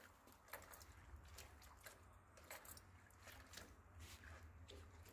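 Faint, irregular splashing and swishing of hands washing spinach and fenugreek leaves in a tub of water.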